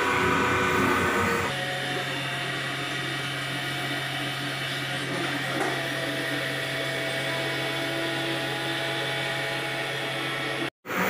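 CNC coil-winding machine running, its spindle and stepper motors giving a steady whine with several high tones. About a second and a half in the sound shifts to a lower steady hum, and it drops out abruptly near the end.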